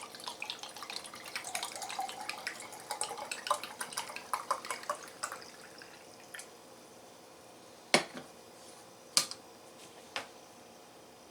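Tea poured from a pot into a small teapot, trickling and dripping for about six seconds. Then come three separate sharp knocks, a second or so apart, of the cookware being handled.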